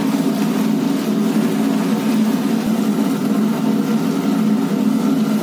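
Chicken pieces and capsicum deep-frying in a wok of hot oil, sizzling and bubbling, over a steady low roar.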